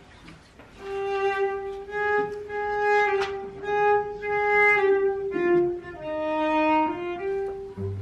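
Solo cello bowed in a slow melody of long held notes, fairly high in its range, starting about a second in.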